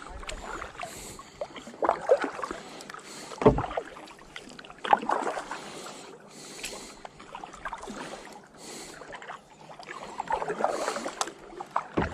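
Kayak paddling: the paddle blades dip and splash into the lake in repeated strokes every second or two, with water dripping and running off them. Two short low thumps come through, once about a third of the way in and again at the end.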